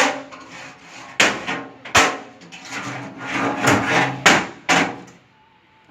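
Hammer blows on wooden centering formwork, about eight or nine irregular sharp knocks that come closer together in the middle and then stop near the end.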